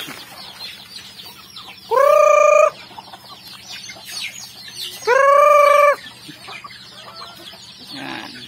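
A flock of chickens clucking as they feed on scattered rice grain. Two loud, drawn-out calls ring out, about two seconds in and again about five seconds in.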